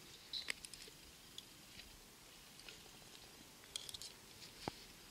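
Faint, scattered crunches and clicks of someone chewing a piece of crusty campfire-baked bread.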